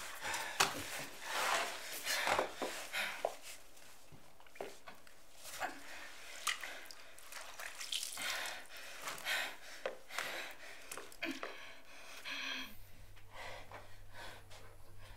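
A woman breathing hard in short, irregular gasps and sobs, with cloth rustling as she pulls at a fabric binding. A low steady hum comes in near the end.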